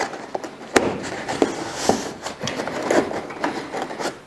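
Stiff brown paper template crinkling and rustling under the hands as it is pressed and smoothed into shape, with a sharp crackle about a second in.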